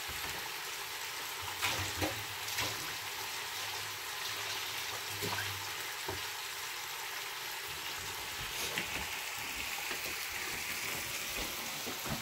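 Chicken thighs sizzling in a frying pan, a steady hiss, with a few light clicks of a utensil against the pan.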